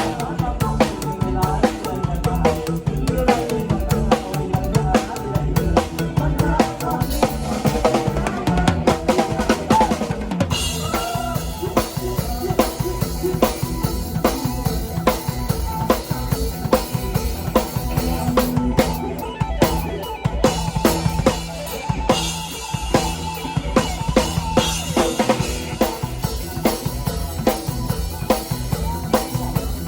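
Isan toei-style music: a drum kit with bass drum and snare keeping a steady beat, with melodic lines playing over it.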